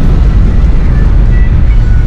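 Loud, steady wind buffeting and road rumble inside a car moving at speed with a window open.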